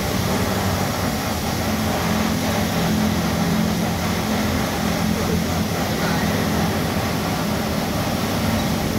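High-pressure car-wash sprayer running: a steady motor and pump hum under a continuous rushing hiss of water spray, the hum growing stronger about two seconds in.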